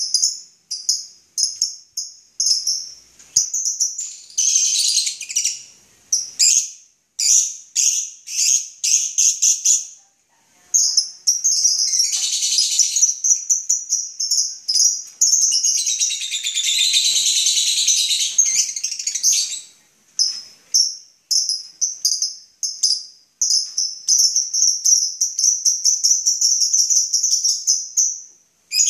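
Lovebirds calling: a run of sharp, high-pitched chirps, several a second, broken by stretches of fast chattering and one long unbroken trill near the end.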